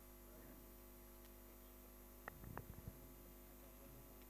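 Near silence: a faint steady electrical mains hum, with a few faint clicks a little past halfway.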